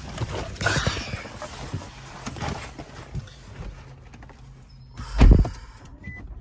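Someone getting into a Nissan Altima SR, with rustling, shuffling and knocks as they sit down. The driver's door shuts with a heavy thump about five seconds in, and a short electronic beep follows near the end.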